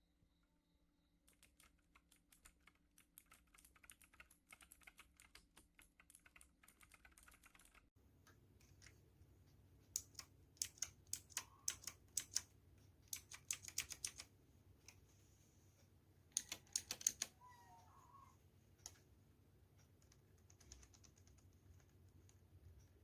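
Typing on a DAREU EK87 V2 mechanical keyboard: rapid key clicks, faint at first. After a change in the background about a third of the way in, louder clusters of keystrokes follow, then lighter typing near the end.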